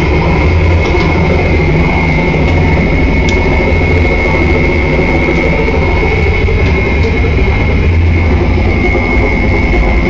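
Modular synthesizer driven by step sequencers, playing a loud, dense electronic texture: a heavy low drone under a steady high tone.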